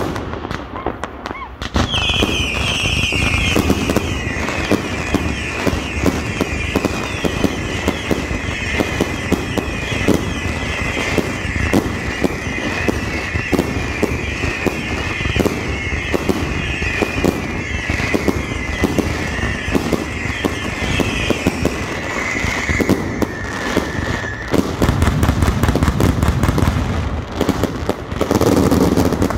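Mascletà firecrackers exploding in a dense, continuous barrage, overlaid from about two seconds in by a chorus of high whistling fireworks that drifts slightly lower and dies away about three-quarters of the way through. Heavier, deeper bangs follow near the end.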